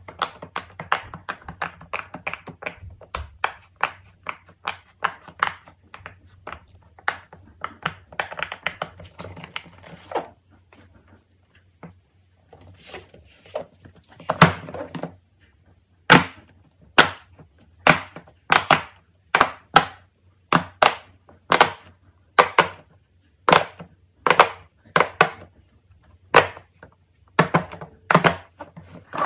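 Fidget toys clicking and popping under fingers: a fast run of small clicks, a short lull, then sharp separate pops at about two a second.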